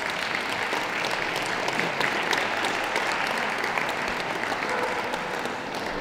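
Audience applauding: a dense, steady clatter of many hands clapping, easing off slightly near the end.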